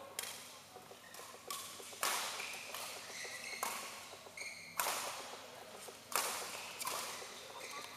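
Badminton rackets striking a shuttlecock: a string of sharp cracks, roughly a second or so apart, each ringing in the large hall, with short high squeaks of shoes on the court mat.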